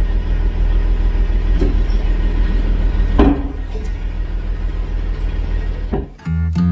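New Holland tractor engine running steadily under load, with a single metallic clank about three seconds in. Near the end it cuts off and acoustic guitar music begins.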